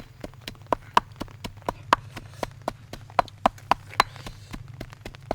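Quick, even knocks or chopping strikes, about four a second, some with a short ring.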